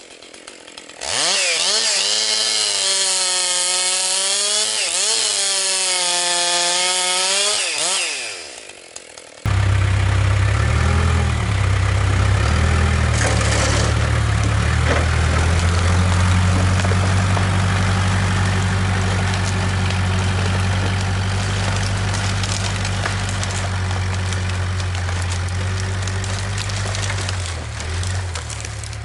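Husqvarna 262XP two-stroke chainsaw running at full throttle and bucking firewood, its pitch sagging and recovering several times as the chain loads in the wood, then dropping off about eight seconds in. About nine seconds in, a lower, steady engine note with the rasp of cutting starts abruptly and runs on, changing briefly near the end.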